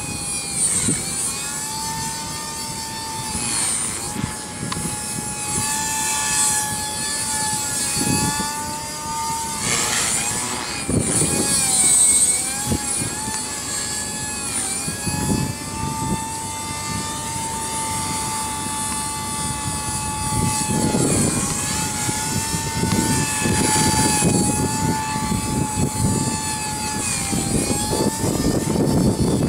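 Walkera V200D03 electric RC helicopter in flight: its motor and rotor give a steady high whine that wavers in pitch as it is flown, dipping briefly a couple of times. Wind buffets the microphone in low rumbling gusts.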